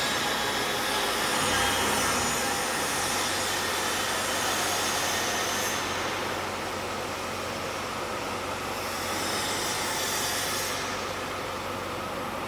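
Steady machinery noise echoing in a large factory hall: an even hiss with a low hum under it, and no distinct knocks or clanks.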